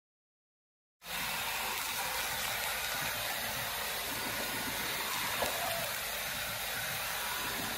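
Handheld hair dryer running steadily, an even hiss that starts abruptly about a second in.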